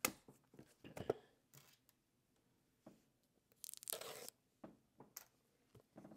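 Cardboard product box being opened by hand: light taps and handling noises, with a brief tearing sound about three and a half seconds in.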